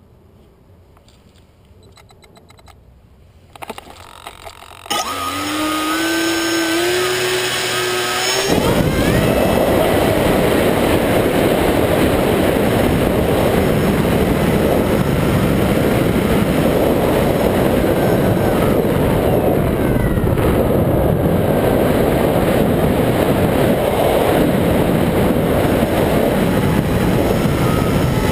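Electric motor of an EasyStar RC plane spinning up with a rising whine about five seconds in. From about eight seconds, a loud, steady rush of wind and motor is picked up by the camera mounted on the plane's wing as it flies.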